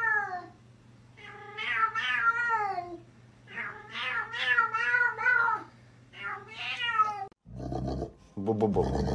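Domestic cat yowling: four long, wavering meows that bend up and down in pitch, with short pauses between them. A lower, rougher sound follows near the end.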